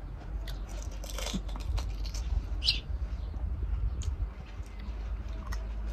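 Eating pani puri: crisp fried puri shells crunching and being chewed, heard as scattered small cracks and clicks over a low steady rumble.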